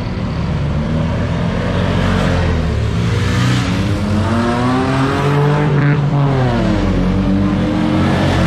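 Off-road vehicle engine running hard under load, its pitch climbing as it revs, dropping sharply about six seconds in, then climbing again.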